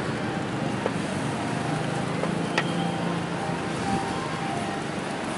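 Steady outdoor street noise, like passing traffic, with a faint low hum and a single sharp click about halfway through.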